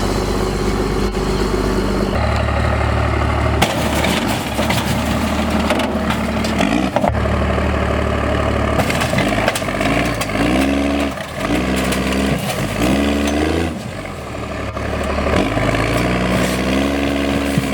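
Cummins 5.9 L inline-six diesel in a first-generation Dodge truck running under load off-road, its revs climbing and dropping again several times in quick succession in the second half.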